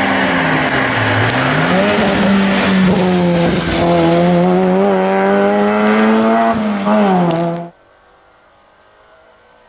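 Peugeot 106 S16 rally car's 1.6-litre 16-valve four-cylinder engine at high revs as it passes through a bend. The revs drop briefly about a second in, then climb and hold high. The sound cuts off suddenly near the end.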